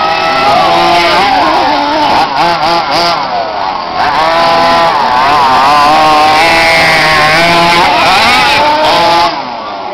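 Several nitro RC truck engines revving up and down at once, their buzzing pitch rising and falling as the trucks accelerate and back off. The sound drops away suddenly near the end.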